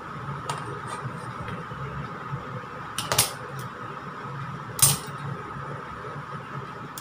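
A steel ruler and a detail pen knife being laid down on a cutting mat: two short metallic clacks about three and five seconds in, with lighter ticks of handling, over a steady background hum.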